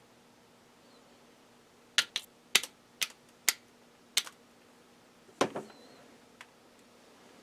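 A quick run of about seven sharp clicks or taps over two seconds, then a heavier, duller knock a little later, over a faint steady hum.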